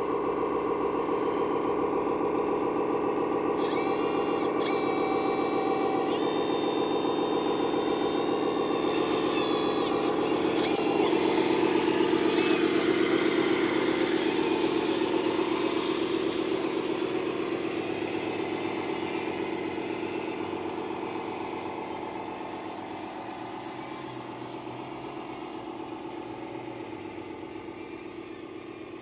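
Radio-controlled construction machine running with a steady engine-like hum, thin high whines over it in the first few seconds. The sound swells about halfway through, then slowly grows quieter.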